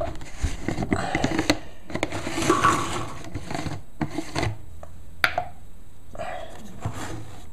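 Plastic container lid being pried and worked open by hand: irregular scraping and rubbing of plastic with a few sharp clicks, dying down after about four and a half seconds.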